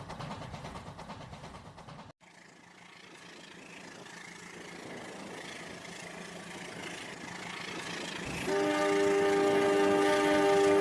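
A train running with a rhythmic rumble, cut off abruptly. Then the sound of a train slowly growing louder as it approaches, and from about eight seconds in a loud, steady multi-tone horn chord.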